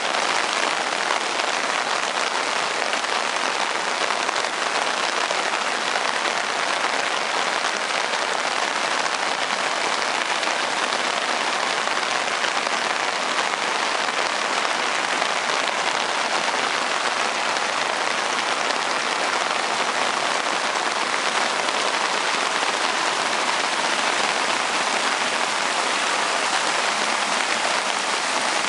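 Heavy rain falling steadily, an even dense hiss with no breaks.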